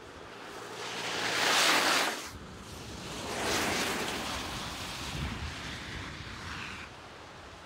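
Mercedes-Benz E 220d 4Matic estate driving past on a slushy, snow-covered road: its tyres hiss through the slush and snow, swelling twice as it comes by and then fading away.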